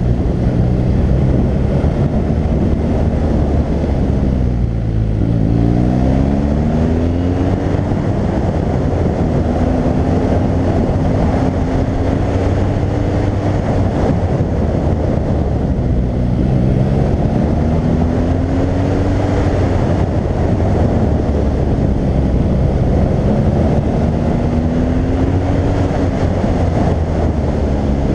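BMW R1200GS boxer-twin engine pulling the bike through bends, its note falling and rising with throttle and gear changes, most steeply about five seconds in. A dense rush of wind noise lies under it, heard from a helmet-mounted camera.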